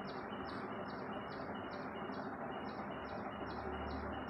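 A bird chirping, short high chirps repeating evenly about three times a second over a steady background hiss.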